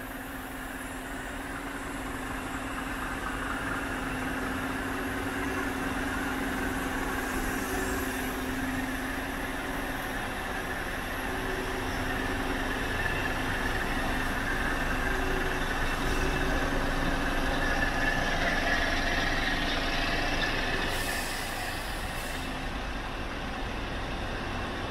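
Scania G400 tractor unit's 400 bhp turbocharged Euro 5 diesel engine idling steadily, with two brief hisses near the end.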